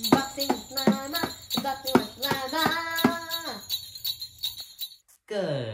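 Upbeat intro music with sleigh bells jingling over a steady beat and a tune. The music ends about four and a half seconds in, and after a brief gap a voice begins right at the end.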